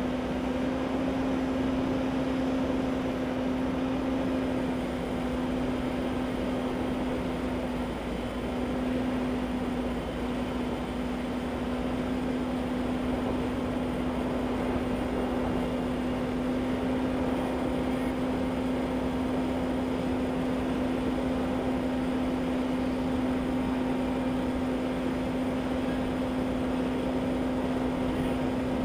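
A steady machine drone: a constant low hum over an even rushing noise, unchanging throughout.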